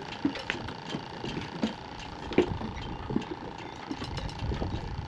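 Scattered, irregular light clicks and knocks of fishing gear being handled, over a steady faint high-pitched whine.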